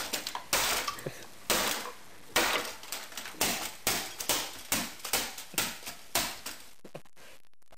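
An extendable metal baton repeatedly smashing down onto a pile of broken plastic electronics casings and debris. About a dozen crashing strikes come at roughly two a second and stop about a second before the end.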